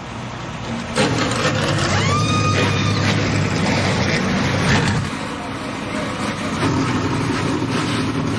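A NASCAR Truck Series race truck's V8 engine fires up suddenly about a second in, then runs loud and rumbling. A whine rises and levels off around two seconds in.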